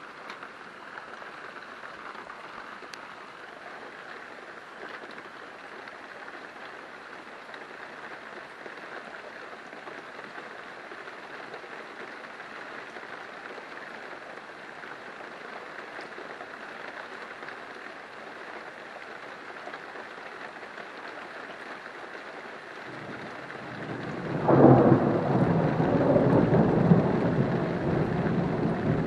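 Steady rain falling, then near the end a loud clap of thunder breaks in and rumbles on.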